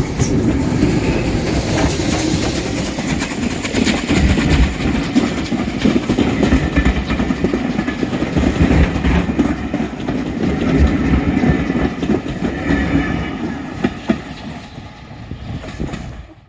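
Steam-hauled train passing through the station at speed, led by the Bulleid Battle of Britain class locomotive 92 Squadron, loud, with wheels clattering over the rails. The sound dies away over the last few seconds as the train moves off.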